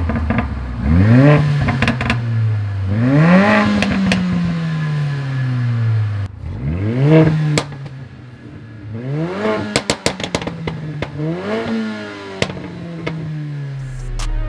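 Mercedes-AMG A45's turbocharged four-cylinder engine revved about five times, each rev rising quickly and dropping away slowly, with exhaust overrun pops and crackles as the revs fall, made louder by a Stage 1 ECU remap.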